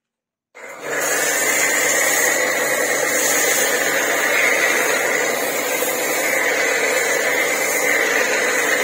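Kortex KTX-R5D pressure washer's 1.8 kW motor running under load while a foam cannon sprays thick car-shampoo foam: a steady hiss and whine. It starts suddenly about half a second in as the trigger is pulled.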